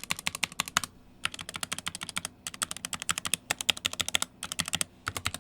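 Stabilized keys of a SteelSeries Apex Pro mechanical keyboard in a sound test: a fast run of key clacks, several strokes a second, broken by a few short pauses.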